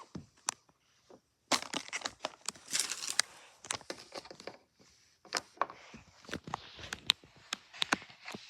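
Packaging being handled during an unboxing: irregular crinkling and sharp clicks, densest about one and a half to three seconds in.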